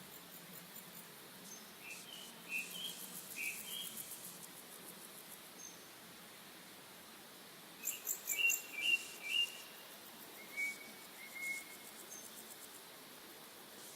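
Small birds chirping in short groups of quick notes, in two main bursts and a few calls near the end, with insects' fast high clicking trills alongside.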